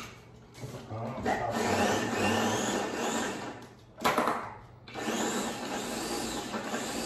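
Small Ninja food chopper running in two pulses of about three seconds each as its blades chop avocado and garlic, with a short loud knock between the pulses.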